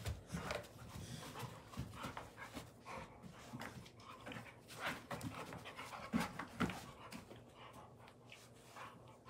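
An adult dog and a puppy playing rough, with panting and irregular short scuffling sounds throughout.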